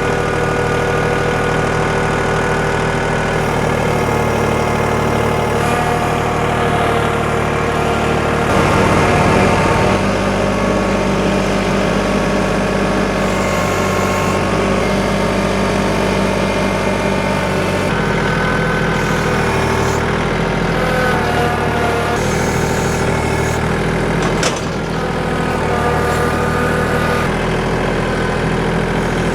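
Engine running steadily, its speed and pitch shifting a few times, with a brief knock about three-quarters of the way through.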